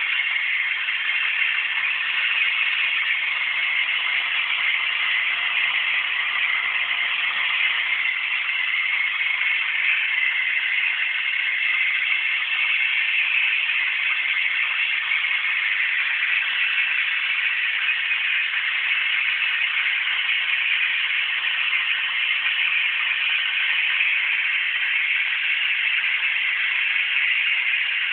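Vacuum cleaner running steadily, a constant high whirring motor noise.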